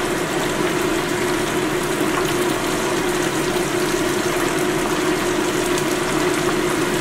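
Starch-coated chicken pieces sizzling and bubbling steadily in a pan of hot frying oil, with a steady low hum under it.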